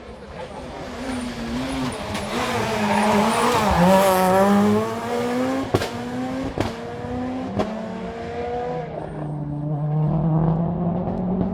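Rally car engine at full throttle coming close, its note rising and falling and loudest about four seconds in. It then accelerates away through quick upshifts, each marked by a sharp crack, and keeps running hard afterwards.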